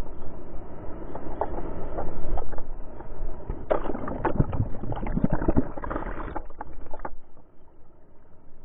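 Surf wave breaking over a kayak, the water churning and splashing with scattered knocks and thumps, sounding muffled. It dies down about seven seconds in.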